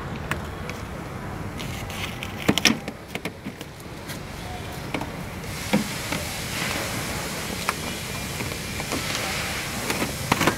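Clear plastic water-shield sheet being peeled off a car door's inner metal panel, crinkling and rustling, with several sharp clicks and snaps.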